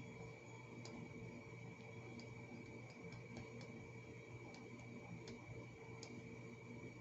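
Faint steady electrical hum with a few light, irregular clicks scattered through it.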